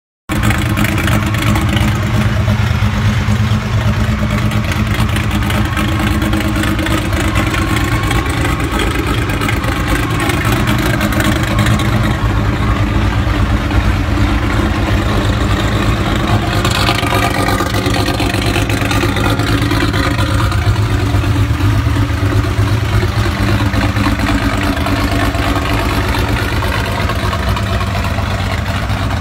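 A twin-engined, turbocharged VW Golf drag car idling loudly and steadily, a deep rumble that neither revs nor changes much.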